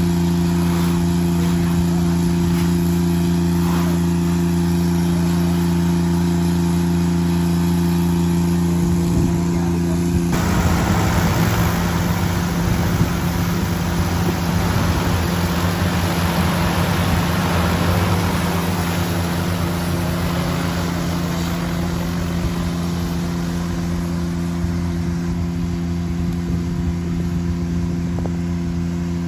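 Steady multi-tone hum of a large multi-rotor agricultural drone used for spreading granular fertilizer. About ten seconds in, a broad rushing sound of rotor wash joins the hum as the drone passes; it swells, then eases off after about eight seconds.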